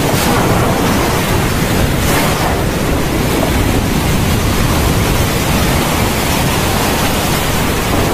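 Heavy, torrential rain falling in a steady, dense hiss.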